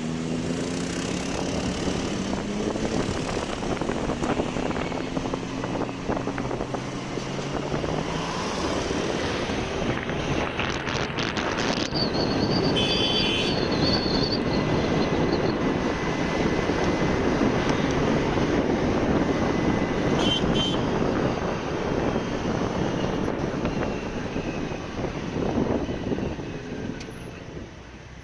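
Vehicle engine on the road, its note falling steadily in pitch over the first several seconds as it slows or eases off, then giving way to a steady, somewhat louder rush of road and traffic noise.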